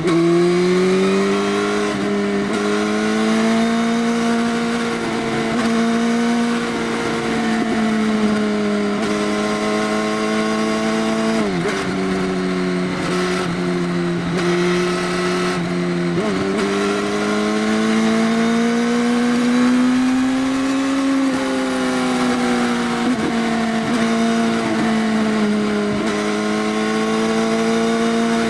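Motorcycle running on an Arrow full exhaust system with the dB killer removed, ridden under way. Its engine note rises and falls with the throttle, with a few quick drops in pitch about a third and halfway through.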